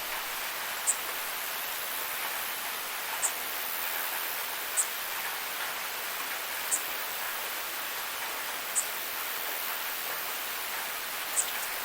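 Steady rush of a forest waterfall. A bird's high, short call sounds over it six times, about every two seconds.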